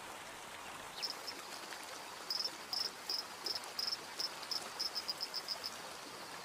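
Male Indian dancing frog calling: a series of short high chirps that come faster and faster, then stop shortly before the end, over a faint steady hiss.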